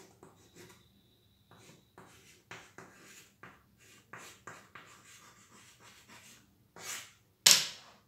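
Chalk writing on a chalkboard: a run of short scratching strokes, then a louder short rush of noise near the end.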